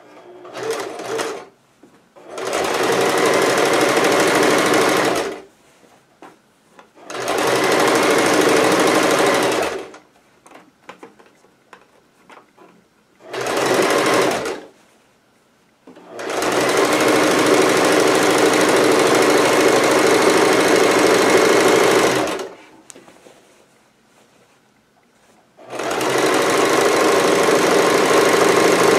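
Household sewing machine running a straight stitch along a trouser side seam in five separate runs, the longest about six seconds, with short pauses between them.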